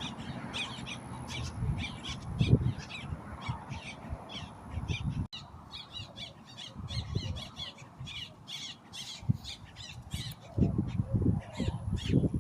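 Many birds chirping and calling in quick succession, with a few low bumps on the microphone.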